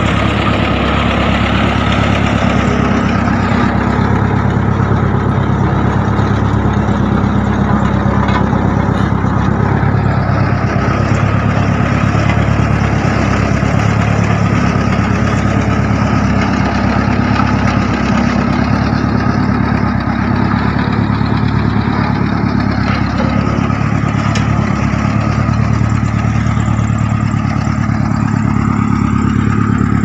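Heavy machine engine idling steadily, a constant low engine note that does not rev.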